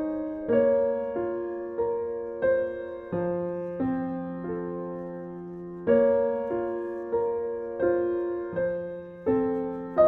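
Background music: slow, gentle piano chords, each struck and left to fade.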